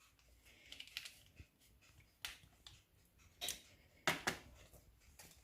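Sparse light clicks and taps of kitchen handling as baking powder is added to the cookie mixture, a few isolated ones at first and a quick cluster near the end.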